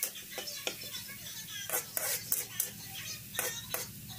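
Metal spatula scraping and clinking against a wok as chopped garlic and shallots are stir-fried in oil, in irregular strokes, often two close together. Music plays steadily underneath.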